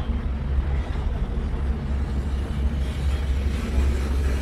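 Engine of a Venice water bus (vaporetto) running steadily underway, heard from on board as a low drone with a steady rushing noise over it.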